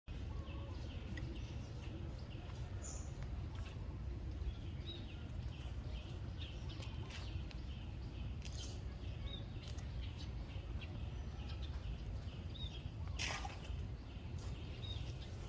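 Small birds chirping in short, scattered calls over a steady low rumble, with a brief sharp noise about thirteen seconds in.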